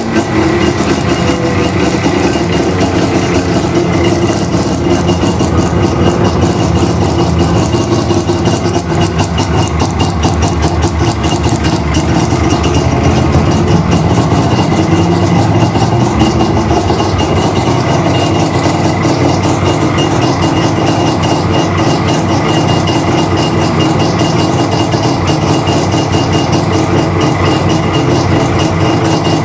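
Saab 93 F's three-cylinder two-stroke engine idling steadily with a rapid, even beat.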